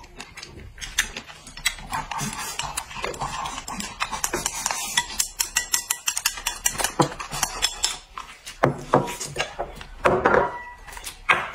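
Chopsticks clicking and scraping against small porcelain bowls in quick, irregular strokes while two people eat, with mouth noises of eating.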